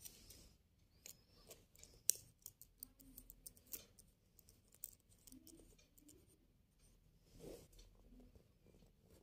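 Faint handling of a plastic pen on cloth: scattered small clicks and rubbing, with one sharper click about two seconds in.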